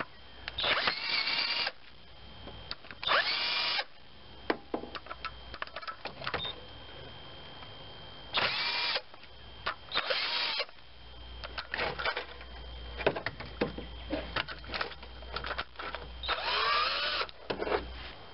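Power tool driving a 10 mm socket, spinning rocker arm nuts loose on a GM 3.4L V6 so the push rods can be lifted out. It runs in five short bursts of about a second each, its pitch rising and falling within each burst, with sharp metal clicks and clinks between the bursts.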